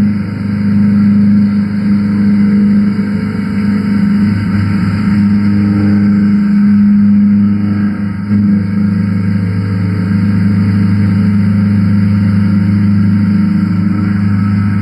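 Doosan DVF5000 five-axis CNC mill roughing titanium with a Harvey bullnose end mill under flood coolant: a loud, steady cutting hum with a strong, even low tone, dipping briefly about six and eight seconds in. A smooth, stable cut, the sound a machine is supposed to make when cutting titanium.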